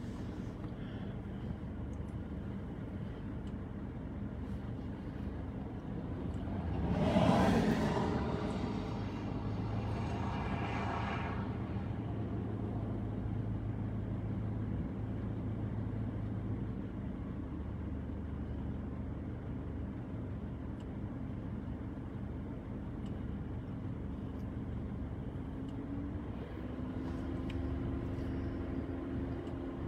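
Steady low hum of an idling vehicle engine, with a vehicle passing by about seven seconds in, swelling and fading over a couple of seconds.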